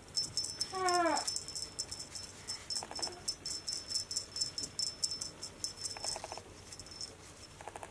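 Baby toy rattle jiggled over a kitten, a fast dry high clicking that dies away near the end. About a second in, a short falling mew from the Siberian kitten.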